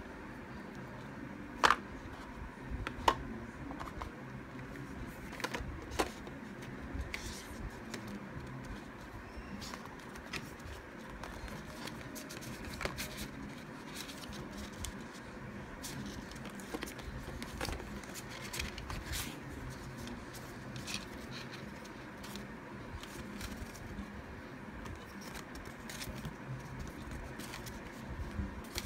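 Hands handling the iPhone box's cardboard, paper inserts and accessories: scattered light taps, clicks and rustles, with two sharper clicks a couple of seconds in, over steady low room noise.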